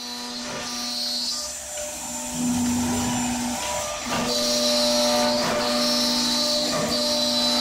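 Three-head CNC oval tenoning machine running, its high-speed router spindles whining steadily as they cut tenons into curved wooden parts, growing louder about two and a half seconds in and again at about four seconds as the cutters work. A few short knocks sound along the way.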